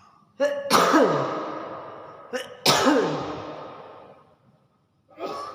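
Hill myna mimicking a human cough twice: two loud, noisy bursts, each with a short lead-in and a falling pitch, fading away over about a second and a half.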